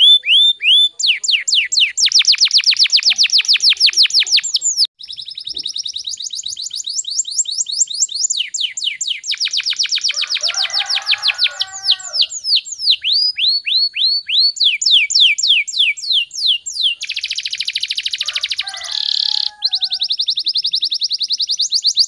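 Domestic canary in full, fast song: a chain of rapid trills, each a run of quick repeated whistled notes, switching speed every few seconds. About three quarters of the way through there is a harsh, buzzy stretch before the trilling resumes.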